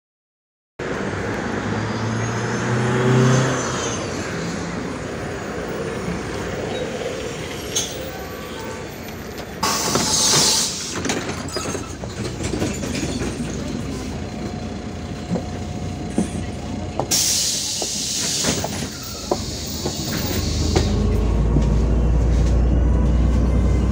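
Cabin noise inside a MAZ 105.065 articulated city bus stopped for boarding, with two loud hisses of released compressed air, about ten seconds in and again some seven seconds later. Near the end the diesel engine's low rumble rises as the bus pulls away.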